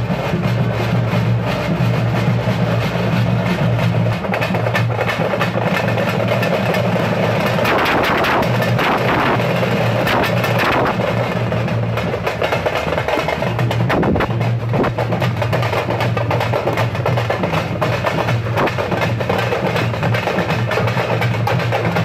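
Loud, continuous drumming with sharp wood-block-like percussion. A steady low hum runs underneath and fades for a few seconds in the middle.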